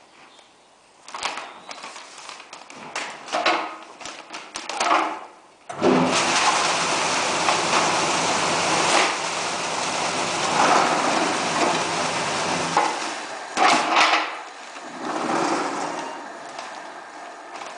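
Plastic bags rustling and knocking as they are handled. About six seconds in, an aggregate bagging machine starts up, and its motor hums under the hiss of rock salt pouring through the chute into a bag. The fill lasts about seven seconds and stops abruptly, followed by a couple of knocks and more bag rustling.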